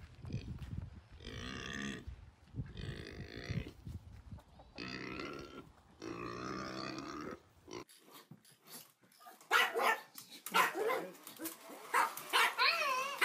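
A pig calling from a backyard pen: four drawn-out calls of about a second each, with a low rumbling start. Near the end, after a sudden change, come sharp clicks and a high wavering whine.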